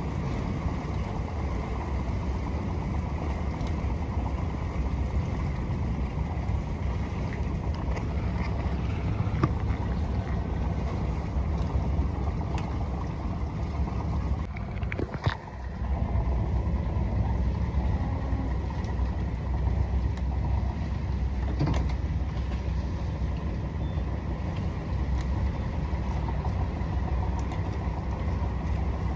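Motorboat engine running steadily at low speed: a constant low rumble that dips briefly about halfway through.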